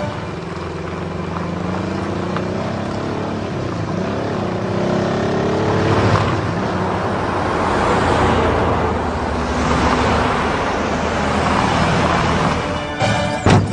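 A convoy of military vehicles, a jeep, a sidecar motorcycle and canvas-covered trucks, driving past on a snowy road, engines running with pitch rising and falling. It swells louder as the trucks pass close, with a few sharp knocks near the end.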